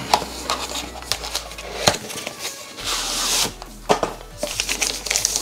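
A thin plastic packaging bag rustling and crinkling as it is handled, with scattered small clicks and taps and a longer rustle about three seconds in. Background music plays underneath.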